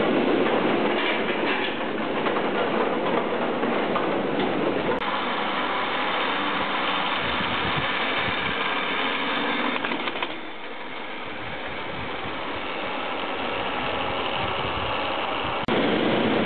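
Old chairlift running: steady mechanical rattling and clatter from the station's wheel and chair machinery, then, riding the chair, a quieter running noise of the haul rope and hanger as it climbs past a tower. The sound changes abruptly about five seconds in and again just before the end.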